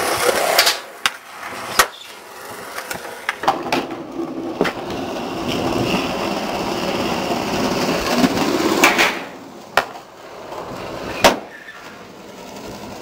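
Skateboard wheels rolling on smooth concrete, with a number of sharp cracks and slaps from the board popping and landing. The loudest slap comes near the end.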